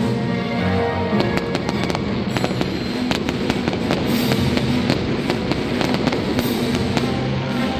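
Fireworks bursting with rapid crackling pops, thickest a couple of seconds in, over music playing throughout.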